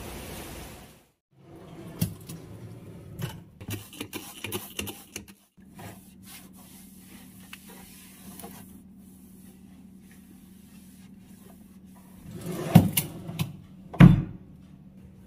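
Steady rain hiss that cuts off about a second in, then a cloth wiping and rubbing inside a kitchen cabinet with scattered small knocks. Near the end a cabinet door is pushed shut with two loud knocks about a second apart.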